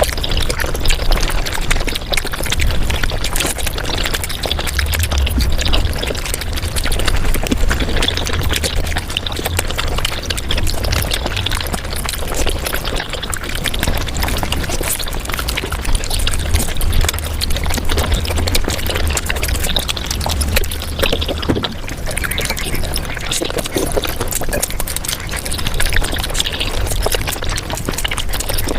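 Mukbang eating sounds of noodles and momo played back at five times speed: slurping and chewing turned into a dense, rapid crackle of wet smacks and clicks over a low rumble.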